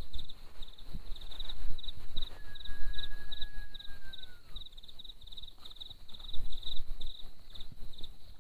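Forest insect chirping in a steady pulsed rhythm, about three chirps a second. About two seconds in, one long, drawn-out whistle holds its pitch and then falls away at its end. Low knocks and rustling sit close underneath.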